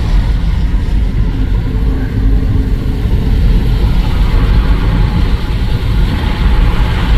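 Steady low rumble of road and wind noise from a car in motion, heard from inside the car.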